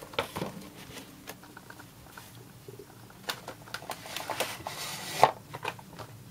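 Carded action-figure packaging of cardboard and clear plastic blisters being handled: irregular rustling, scraping and clicking, with a sharp click about five seconds in.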